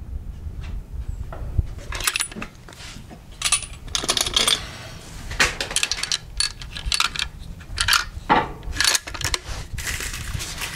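Sharp metallic clicks and clinks in an irregular string of a dozen or so, from a bolt-action rifle's action and its brass cartridges being handled between shots, over a steady low rumble.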